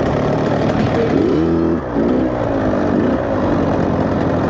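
Dirt bike engine running, its pitch rising and falling a couple of times as the throttle is opened and closed.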